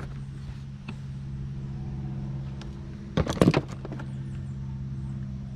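Steady low mechanical hum from a 2012 Jeep Wrangler's engine bay, with a short burst of loud clicking and rattling about three seconds in.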